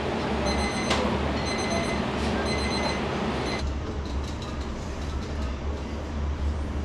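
Electronic beeper sounding in short high beeps about once a second, stopping about three and a half seconds in, over a steady low hum and rush of kitchen noise.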